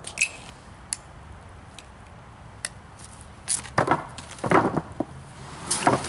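A few scattered sharp wooden knocks, then, from about halfway, a run of louder crunching footsteps in snow and scrapes as a heavy rubber mat is dragged over a stack of stickered boards.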